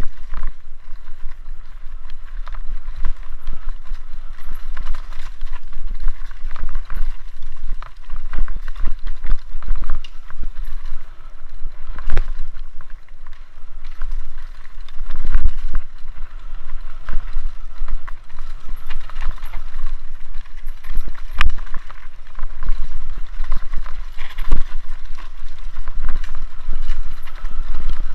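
Mountain bike riding fast down a rough dirt forest trail, heard from a camera on the bike or rider: continuous rattling and clattering of the bike with frequent knocks over roots and rocks, tyres rolling on dirt, and wind rumbling on the microphone. Several heavier jolts stand out.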